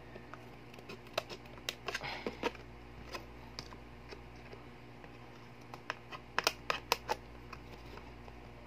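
Scissors cutting through a thin clear plastic food container: irregular sharp snips and crackles, a cluster about a second or two in and a louder cluster around six to seven seconds in.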